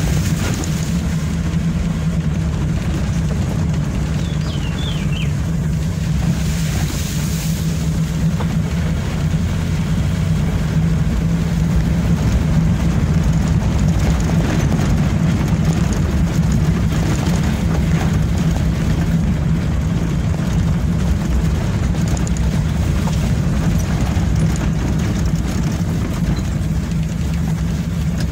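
A vehicle's engine running steadily while driving, a continuous low hum with road noise and no change in pace.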